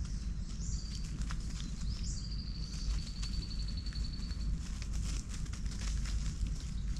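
Dry leaf litter crackling and rustling as lemurs walk and forage over it, over a steady low rumble. A rapid high-pitched trill runs for about two seconds in the middle.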